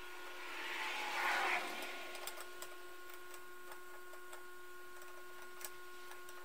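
Gloved hands handling transmission parts on a workbench: a brief rustle about a second in and a few light clicks, over a steady background whine.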